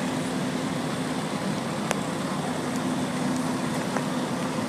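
Steady rumble of vehicle engines and road traffic with a low hum, and one sharp click about two seconds in.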